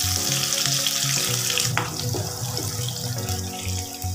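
Sliced onions sizzling in hot oil just after going into the pan, a steady hiss. Background music with a regular beat plays underneath.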